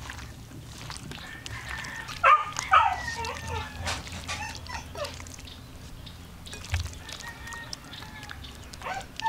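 A dog yelping: two loud yelps between two and three seconds in, then fainter calls.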